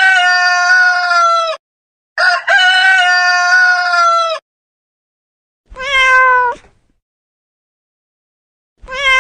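Animal-call notification tones: a long, drawn-out call of about two seconds, played twice, then a shorter cat meow falling in pitch, played twice about three seconds apart.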